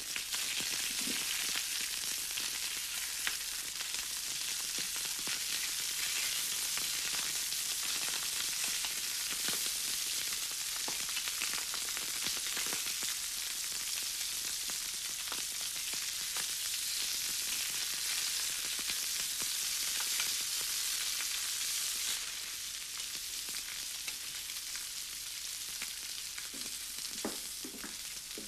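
Fish frying in cod liver oil in a pan on the stove: a steady sizzle with fine crackling, which eases a little about three-quarters of the way through.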